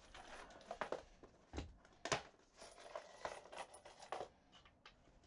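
Faint rustling of a small plastic bag of self-tapping screws being handled, with light clicks and a sharper knock about two seconds in.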